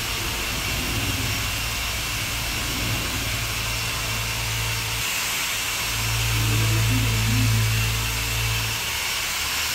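Electric machine polisher running steadily on car paint, a low motor hum with a thin high whine, getting louder for a couple of seconds about six seconds in.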